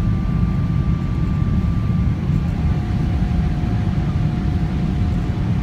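Steady low rumble of a jet airliner's cabin on the ground before takeoff, with a faint steady whine that shifts to a lower pitch about two seconds in.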